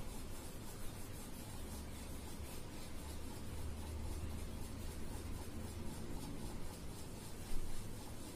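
Blue oil pastel rubbing and scratching on paper in quick back-and-forth shading strokes, over a steady low hum, with one brief knock near the end.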